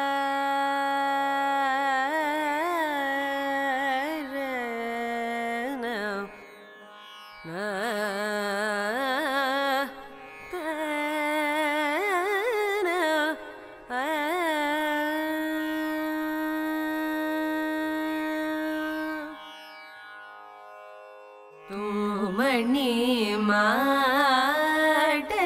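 Carnatic vocal music: a woman's voice sings a slow melody of held notes and heavily oscillating, sliding ornaments (gamakas). The phrases are broken by a few short pauses, the longest about two seconds, a little past three-quarters of the way through.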